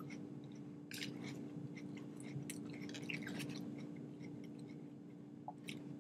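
Quiet eating sounds: a plastic fork picking through leafy salad in a foam takeaway box and a mouthful being taken, soft scattered clicks and crackles over a steady low hum.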